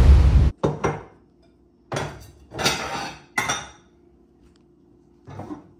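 Music cuts off suddenly about half a second in, followed by bowls and dishes clinking and clattering in several short bursts as bowls are taken down from a kitchen cabinet shelf.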